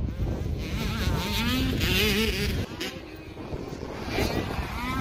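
Dirt bike engine revving, its pitch climbing and falling in a string of quick throttle blips, easing off a little after halfway and picking up again near the end.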